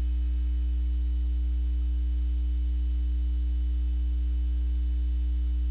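Steady low electrical hum, one unchanging deep tone with a few fainter overtones.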